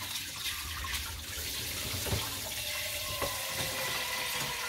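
Kitchen tap running into a stainless steel sink, water splashing over hands rinsed under it and then into a small metal pot held under the stream, with a couple of light knocks about two and three seconds in.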